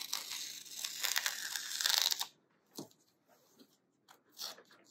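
A strip of tape peeled off the edge of painting paper, a ripping noise for about two seconds that stops suddenly, then a couple of faint crinkles.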